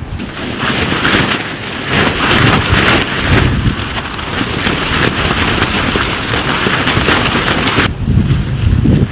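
Nylon tent fly being shaken out, the fabric rustling and flapping as crusted snow and ice crackle off it in a dense patter. The crackle stops about eight seconds in, giving way to a low rumble.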